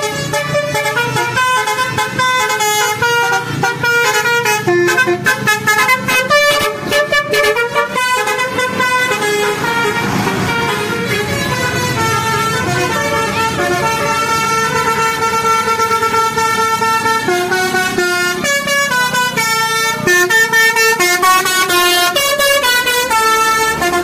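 A tour bus's 'basuri' telolet horn playing a tune: a run of loud, quickly changing horn notes.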